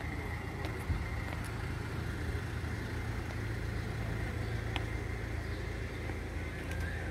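A motor vehicle engine idling, a steady low rumble, with a few faint clicks over it.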